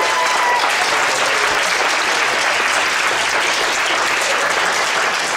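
A classroom of students applauding: dense, steady clapping.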